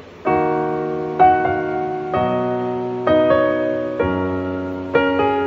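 Background piano music: slow chords struck about once a second, each ringing on and fading before the next.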